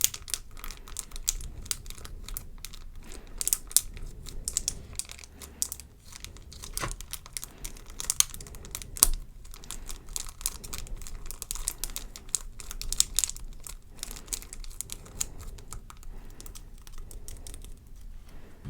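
Small plastic packaging being handled and unwrapped: irregular crinkles, taps and clicks throughout.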